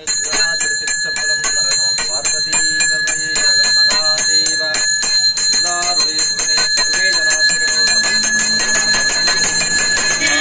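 Small brass pooja hand bell (ghanta) rung rapidly and without a break during the aarti, a bright, sustained ringing of quick, even strokes.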